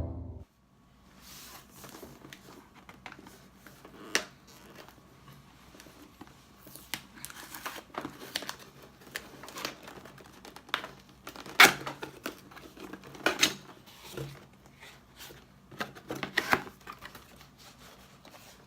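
Packaging being unwrapped by hand: plastic and cardboard rustling, crinkling and tearing, with irregular sharp clicks and taps throughout.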